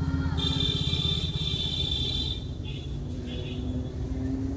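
A motor rumbling steadily with a fast low pulse. A high-pitched horn sounds for about two seconds starting half a second in, then gives two short toots.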